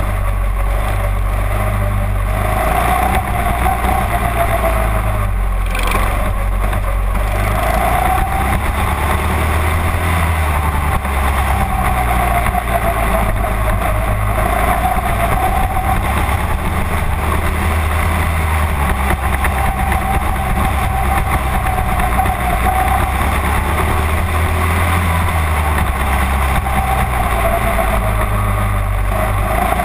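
Mini-dwarf race car engine, heard from inside the cockpit, revving up and dropping back in repeated long swells as the car laps the track. There is one brief knock about five and a half seconds in.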